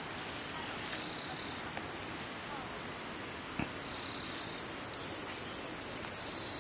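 Steady high-pitched insect chorus of crickets, its pitch sagging and recovering every second or two, with one faint click about halfway through.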